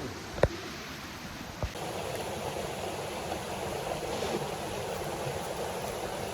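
Rushing water of a stream at a waterfall, a steady noise that becomes louder and fuller about two seconds in. Two short sharp knocks come before it.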